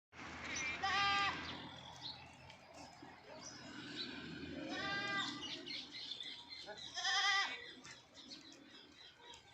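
Goats bleating: three loud, quavering bleats, about a second in, near the middle and about seven seconds in.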